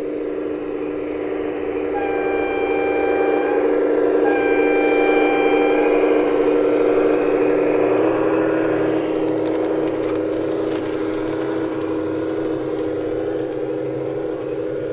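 G-scale model train sounding two horn blasts of about two seconds each, close together, over a steady running drone as the locomotive and its wagons pass along the track.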